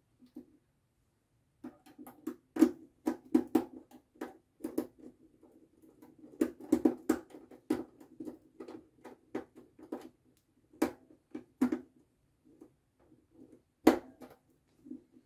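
Irregular clicks and taps of a small screwdriver and fingers working on a plastic timer relay while a wire is fastened into one of its terminals.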